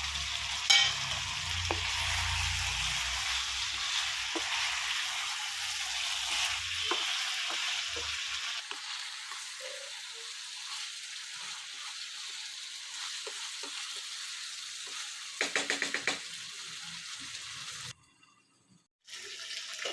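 Chicken curry sizzling in oil in a pan while it is stirred, the masala cooked down to the point where the oil separates. A quick run of knocks comes about three-quarters of the way in, and the sound cuts out for about a second near the end.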